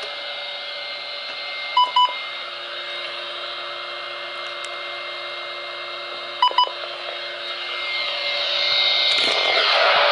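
Weather radio receiver hissing with static and faint steady tones, the NOAA Weather Radio transmitter off the air. Two short double beeps come about two seconds in and again about six and a half seconds in, and the static grows louder near the end.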